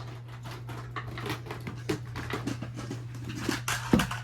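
Rustling and light clicking of small toys being handled, with a louder knock near the end, over a steady low hum.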